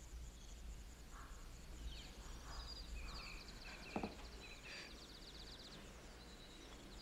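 Faint outdoor ambience of birds and insects chirping in short trills, with a single soft knock about four seconds in.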